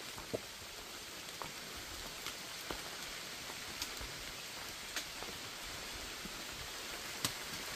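Rain falling on forest leaves: a steady soft hiss with scattered single drops ticking now and then.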